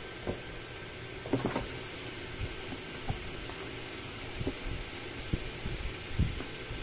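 Soft thumps and light knocks every second or so as kittens paw at and tumble against a cardboard box, over a steady background hiss.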